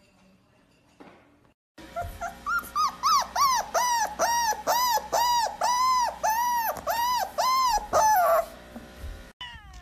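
A recording of a puppy crying, played back: a run of high whines, each rising then falling in pitch, about two a second. It starts about two seconds in and stops shortly before the end.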